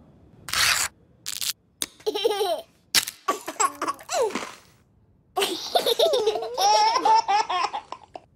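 Babies laughing in several bursts, with high squeals that glide up and down; the longest run of laughter comes in the second half.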